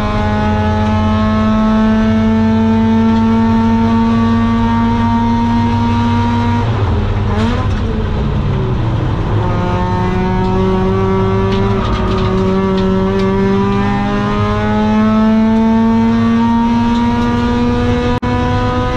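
Mazda RX-8's 192 PS four-port Renesis rotary engine, breathing through a long-tube exhaust with a Borla silencer, pulls hard with its pitch climbing slowly. About six and a half seconds in the note breaks off and falls away as the car brakes and shifts down. It then climbs steadily again under power.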